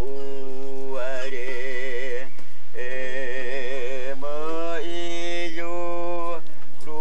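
Singing or chanting voice holding long notes, some with a wavering vibrato, stepping from pitch to pitch over a lower sustained tone, with a brief break partway through.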